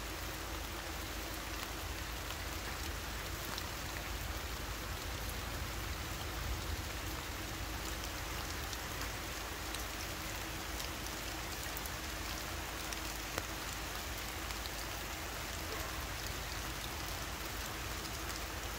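Steady rain falling on foliage and leaf litter: an even hiss with scattered faint drop ticks.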